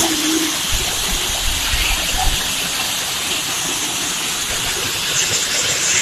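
Waterfall rushing steadily, a dense even roar of falling water.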